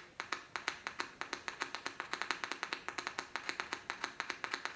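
Mid-range loudspeaker driver crackling as a battery is tapped on and off across its terminals: rapid, higher-pitched clicks, about eight a second. The sound shows the driver's voice coil is not open circuit.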